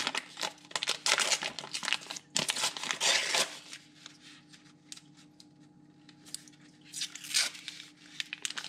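Paper wrapper being peeled and crinkled off a stick of butter. The rustling is densest in the first three seconds, then a few more crinkles come near the end.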